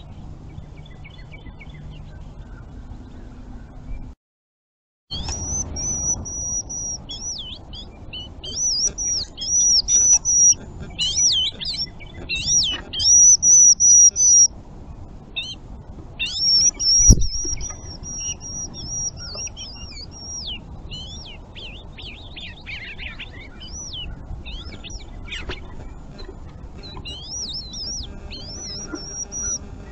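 Songbirds singing: repeated high, whistled, looping phrases, loudest in the first half and thinning out later, over a low steady outdoor background. A single sharp click comes about halfway through, and the sound drops out completely for about a second near the start.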